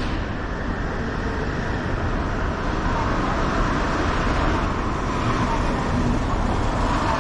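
Steady city road traffic: a continuous noise of passing vehicles that grows a little louder about halfway through.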